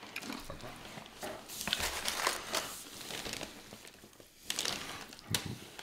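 Tortilla chips being crunched and chewed close to the microphone: a run of crisp crackles and crunches, with a short lull about four seconds in.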